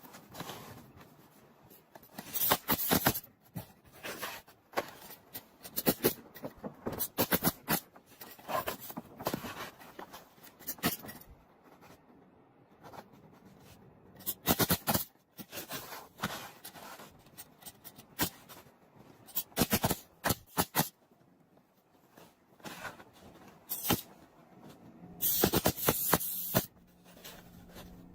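Asphalt roof shingles being handled and nailed in place: clusters of sharp knocks from the nailing, with the rustle and scrape of shingles. A longer scraping noise comes near the end.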